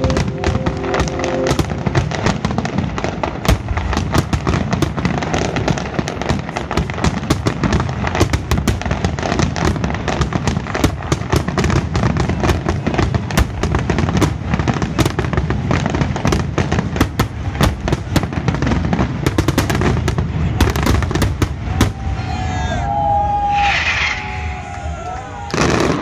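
Fireworks display in full barrage: shells bursting in a rapid, unbroken string of bangs and crackles, thinning out about four seconds before the end as the display dies down.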